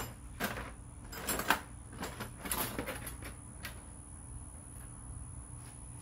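Handling noises from hands-on repair work with tools and parts: a run of short scrapes and clicks over the first three and a half seconds, then a quieter stretch with a faint steady hum and a thin high whine.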